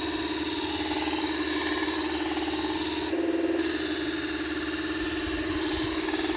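Small electric knife-sharpening grinder running with a steady motor hum while a blade grinds against the wheel with a hissing rasp. About three seconds in, the grinding hiss cuts out for about half a second while the motor keeps running.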